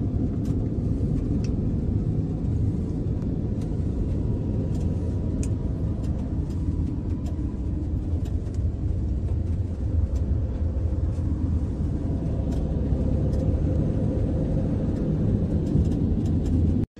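Steady low road and engine rumble inside a vehicle's cabin moving at highway speed, with a few faint clicks.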